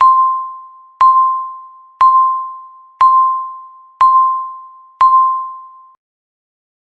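Countdown timer's electronic beep, a single clear tone struck once a second, each one fading away before the next. Six beeps, and they stop after the sixth, about six seconds in.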